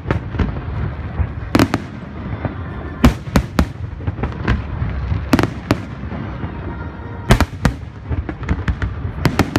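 Aerial firework shells bursting in a display: an irregular series of sharp bangs, several coming in quick succession near the end, over a continuous low rumble.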